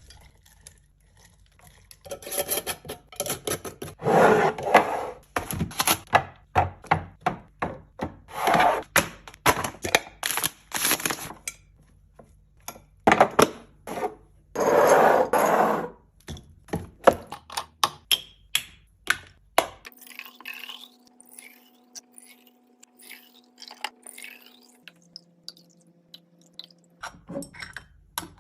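Food containers and packaging being handled while a fridge is restocked: a busy run of clicks, taps and knocks, broken by several rustling or scraping stretches of about a second each. The last several seconds are much quieter, with a faint steady hum.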